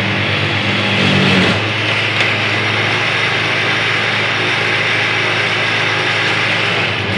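Electromatic Mk II track tamping machine's engine running steadily as a low hum with a hiss over it, swelling briefly a little over a second in.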